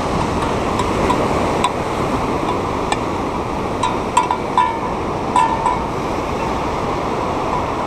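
Steady rush of heavy surf breaking on lava rock, with a small bell on the fishing rod tinkling in several short jingles, most of them in the middle of the stretch.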